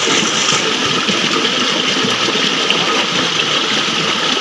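Stream water running over rocks: a steady, even rush.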